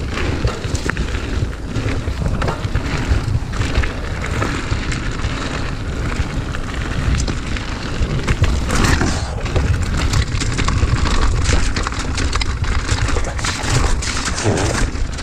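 Mountain bike rolling down a gravel singletrack: steady wind buffeting on the chest-mounted camera's microphone, with the tyres crunching over loose stones and small rattles and knocks from the bike.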